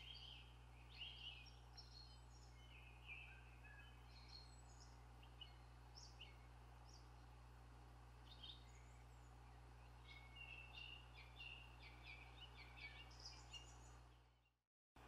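Faint songbirds chirping and calling off and on, over a steady low hum. The sound fades out just before the end.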